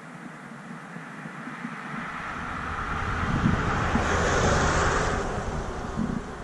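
A road vehicle driving past, its tyre and engine noise swelling to a peak about four to five seconds in, then fading.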